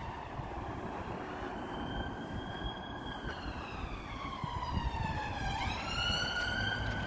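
Emergency vehicle siren wailing, its pitch sliding slowly down and up, with a deep dip and quick rise about five and a half seconds in, over a low rumble.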